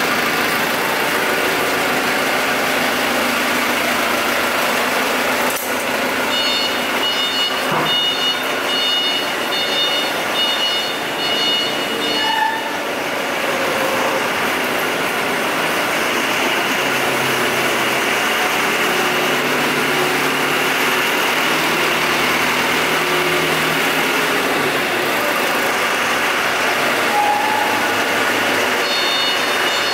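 An engine running steadily and loudly, with a repeating electronic beep, a little more than once a second, for several seconds starting about six seconds in and again near the end.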